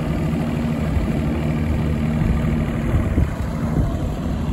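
Mercury Pro XS outboard motor running steadily, pushing the bass boat along under way, with a steady low engine note that wavers about three seconds in.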